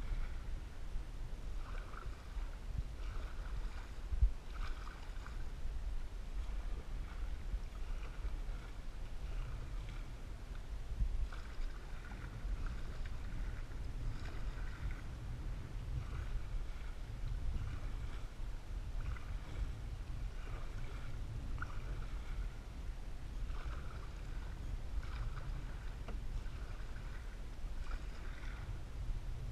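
Canoe paddle strokes in the lake, a short splash every second or two, over a steady low rumble. One sharp knock comes about four seconds in.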